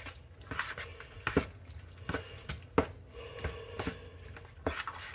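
Metal spoon stirring a thick, chunky stew-like pot-pie filling in a mixing bowl: repeated wet squelches with the spoon now and then tapping the bowl, at an uneven pace.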